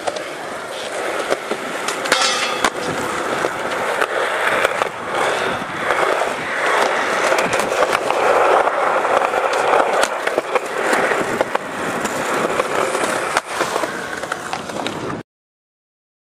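Skateboard wheels rolling over concrete, with sharp clacks and knocks from the board. The sound cuts off suddenly about a second before the end.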